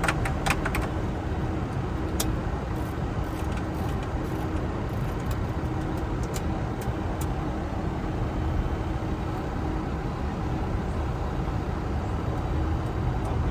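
Steady cockpit noise of a Boeing 747 taxiing: a low rumble with a faint steady hum, and a few light clicks in the first couple of seconds.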